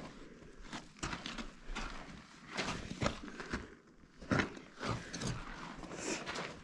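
Slow, irregular footsteps, a step roughly every half second to a second.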